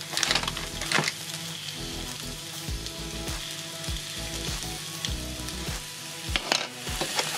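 Sausages sizzling as they start to brown in a cast-iron skillet: a steady frying hiss, with a few sharp clicks near the start and again near the end.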